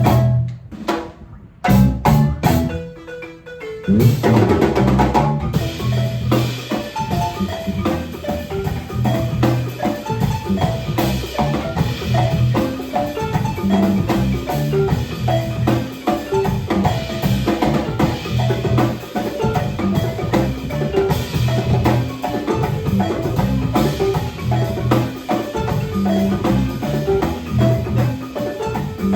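Percussion music: quick pitched mallet notes over steady low drum strokes. A few separate hits come first, then the full rhythm comes in about four seconds in.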